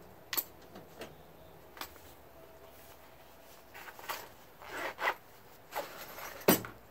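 A small fabric tool-bit case being handled and closed: a few light clicks of bits, a couple of short zipper-like rasps about halfway through, then a sharp knock near the end as the case is set down on a hard surface.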